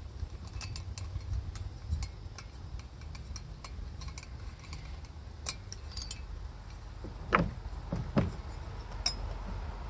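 Light clicks and taps of hand tools and metal parts being handled during a chainsaw teardown, with two short squeaky scrapes about seven and eight seconds in and a sharp click just after, over a steady low rumble.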